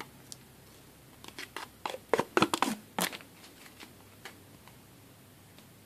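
Thin protective plastic film being peeled off an acrylic case plate: a quick run of crackling and crinkling, loudest about two to three seconds in, with a few faint ticks after.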